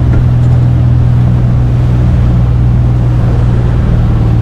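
Boat's Yamaha outboard motor running steadily underway: a low, steady hum with a rush of wind and water over it.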